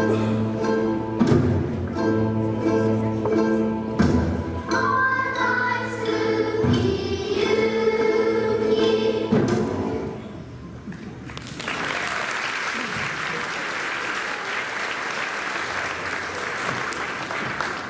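Children's choir singing a spooky song in A minor with accompaniment; the song ends about ten seconds in. After a brief pause the audience applauds.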